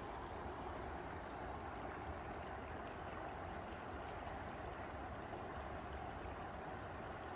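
Water spilling over a low concrete weir, a steady rushing.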